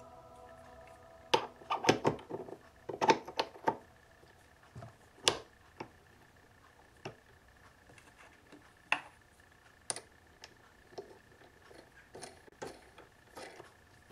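Sharp clicks and light knocks from a hand working a Facetron faceting machine's quill head, turning and setting its index dial. A cluster of loud clicks comes in the first few seconds, followed by lighter scattered clicks, over a faint steady high tone.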